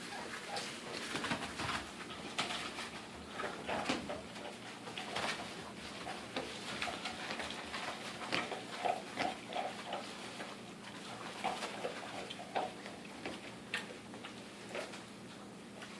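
Five-week-old pit bull puppies making short whimpering calls, with a run of them about eight to ten seconds in, over a scatter of small clicks and scuffles.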